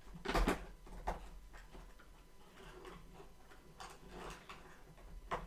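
A few faint clicks and rustles of an advent-calendar compartment being opened and its contents handled. The loudest comes about half a second in, with smaller ones around a second, four seconds and near the end.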